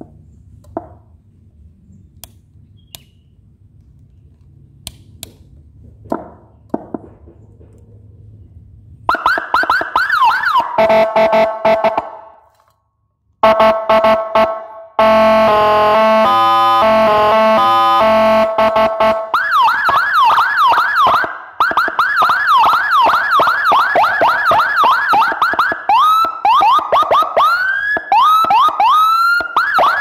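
Whelen HHS electronic siren being tested through its tones. A few faint clicks come first. About nine seconds in, the siren starts with fast rising sweeps, cuts out briefly, then plays a choppy stepped-tone pattern, then fast repeated rising whoops whose pattern changes near the end.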